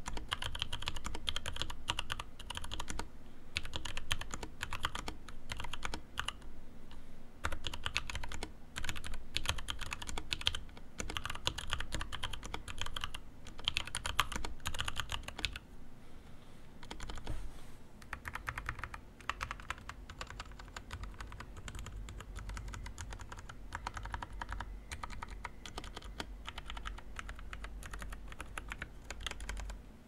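Two-handed typing on a custom DZ60 60% mechanical keyboard with a polycarbonate plate and case, lubed Hako Royal True switches and HKGaming Chalk keycaps. A steady run of quick key clacks with a few short pauses, a little softer in the second half.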